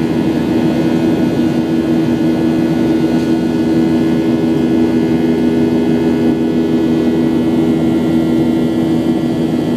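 Boeing 737-800's CFM56 jet engines running at steady power, a loud even drone with two strong low hums.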